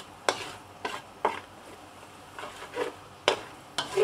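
A metal spatula scraping and knocking against an aluminium wok, about six irregular strokes, while curry paste with lemongrass sizzles underneath. The paste is being stir-fried until blended and aromatic.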